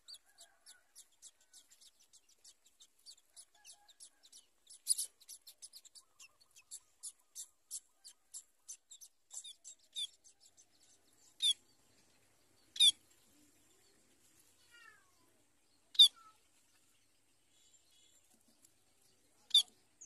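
Society finches calling at the nest: a rapid series of faint, high peeps, about three a second, for the first half, then four louder single sharp calls a few seconds apart.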